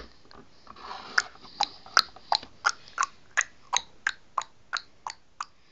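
Steady tongue clicks, about three a second, imitating a ticking oven timer counting down while the pretend food cooks.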